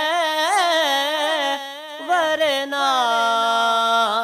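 A male naat reciter singing solo and unaccompanied, with long ornamented notes that waver up and down. About halfway in there is a short pause for breath, then a long held note that steps down in pitch.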